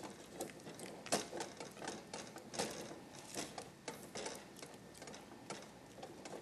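A utensil stirring a thick sugar mixture in a stainless steel saucepan, clicking and scraping against the metal pan in an irregular run of several taps a second as the lumps are worked out.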